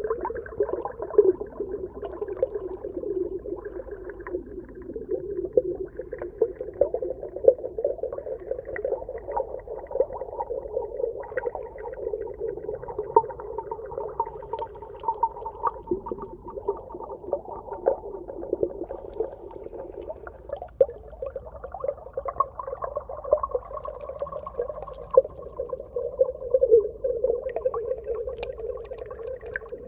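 Underwater ambience: a wavering low drone with a higher band joining it about halfway through, and constant small crackles and pops over it.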